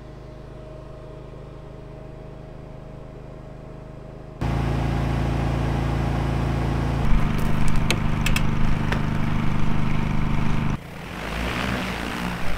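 A steady mechanical hum of a running machine. It jumps abruptly louder about four seconds in, with a few sharp clicks in the loud stretch, and changes again near the end.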